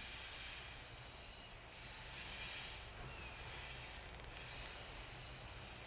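Distant diesel locomotive hauling a short passenger train toward the listener, heard as a faint, steady low engine drone. A high hiss swells and fades a few times over it.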